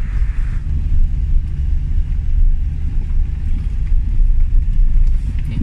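Low, steady rumble of a vehicle being driven, road and engine noise.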